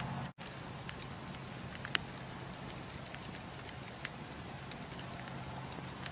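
Wood campfire crackling: a steady hiss of burning logs with scattered sharp pops, the loudest just under two seconds in. The sound drops out for an instant about a third of a second in.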